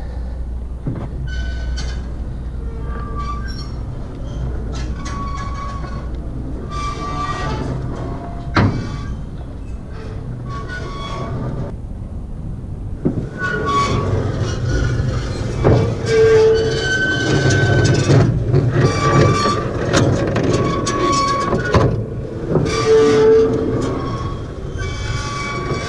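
Welger WSA 350 baler turned slowly by hand at its flywheel, its drive and knotter mechanism squeaking and creaking metal on metal in short repeated squeals, with a few sharp clicks.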